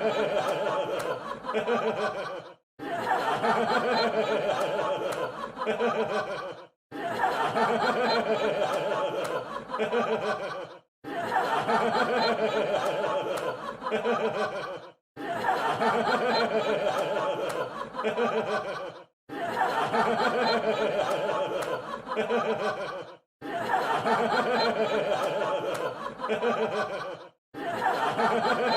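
Audience laughter sound effect: a crowd laughing together, the same laugh of about four seconds repeated over and over, each one broken off by a brief silence.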